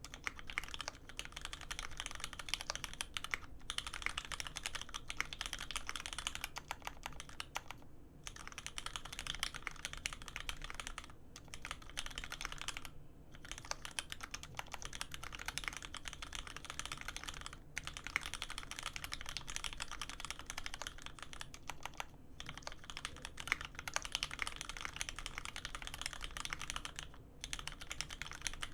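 Steady typing on a custom mechanical keyboard: a Dolphin Special case with an aluminium plate, lubed Cherry Hyperglide Black linear switches on 70 g springs, and GMK keycaps. Keystrokes come in dense runs, broken by short pauses every few seconds.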